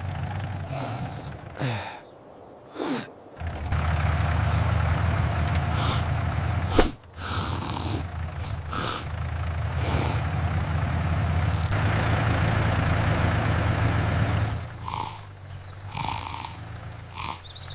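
Farm tractor engine sound effect running steadily with a low hum, broken by a sharp knock about halfway through. Shorter noises and falling tones come before and after it.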